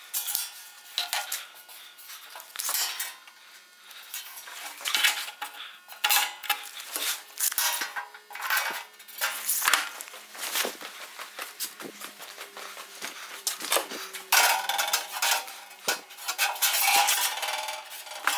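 Sheet-steel floor panel and hand tools handled on a steel workbench: irregular metallic clinks, knocks and rattles, with a few longer scraping sounds near the end.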